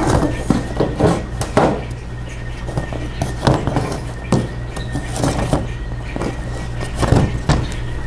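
Rocks and a suspended-ceiling tile being handled overhead: irregular knocks and scrapes as stones are pushed into the space above the tile and the tile is slid back into its metal grid, over a steady low background hum.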